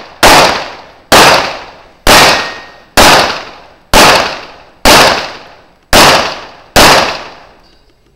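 Pistol shots in IPSC practical shooting: eight single shots about a second apart, each sharp crack dying away over most of a second.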